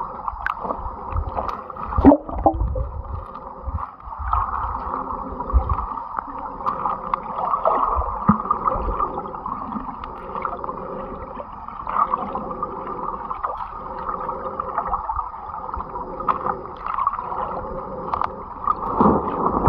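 Stream water heard underwater: a steady muffled rushing and gurgling, with a low rumble, scattered small clicks and a sharp knock about two seconds in.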